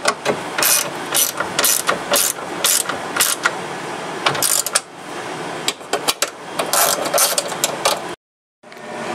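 Socket ratchet wrench clicking in quick runs while 10 mm bolts securing a car window regulator are tightened. It cuts off suddenly about eight seconds in.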